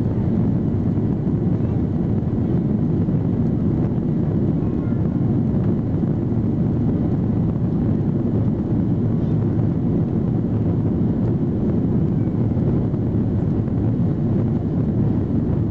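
Steady cabin noise inside a Boeing 737-800 in motion: an even, unbroken rumble of its CFM56 jet engines and airflow, heaviest in the low range.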